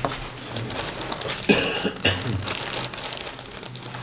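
Clear plastic bag crinkling and rustling as it is handled and opened, with a louder rustle about one and a half seconds in.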